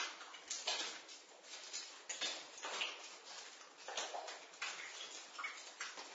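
Water dripping in a basement: drops landing at an uneven pace, a few each second, some louder than others.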